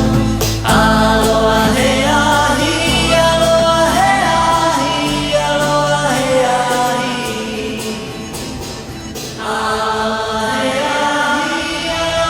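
Background music: a song with singing voices over held low bass notes.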